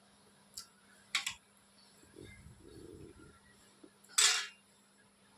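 Dishes and utensils clinking: two light clicks, a soft low handling noise, then one loud, bright clatter about four seconds in.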